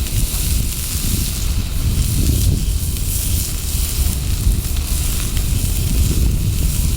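Wood campfire burning with a steady hiss and faint crackles, over a heavy low rumble of wind on the microphone.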